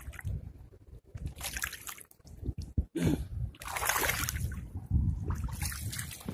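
Shallow rock-pool water splashing and sloshing in a few separate bursts, about a second and a half in, around four seconds and again near the end, over a steady low rumble.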